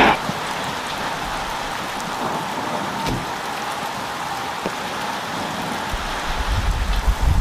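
Seasoning rub shaken from a shaker bottle and pattering onto a raw beef chuck roast and cutting board, a steady fine hiss. A few low knocks near the end as the roast is handled.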